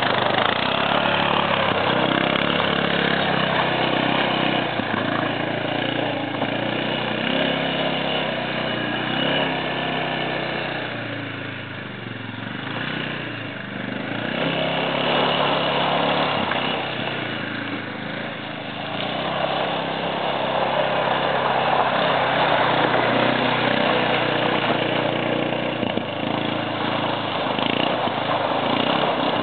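A four-wheeler ATV engine running while it is ridden through mud, growing fainter twice, about 12 and 18 seconds in, then louder again.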